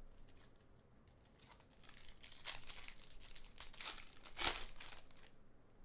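Foil trading-card pack crinkling as it is pulled and torn open by hand, a run of crackles with the loudest one near the end.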